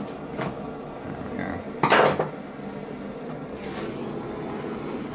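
A few light clicks and a louder knock of handled tools, then, from about three seconds in, a handheld butane blowtorch hissing steadily as its flame heats the polyethylene casing to soften it.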